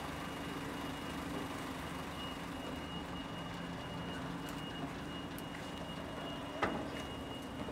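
Steady low mechanical hum with a thin high tone running over it, and one sharp click about six and a half seconds in.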